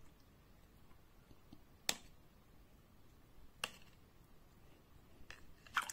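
Quiet handling of chicken pieces in marinade in a plastic container, with three sharp taps against the container, about two seconds apart.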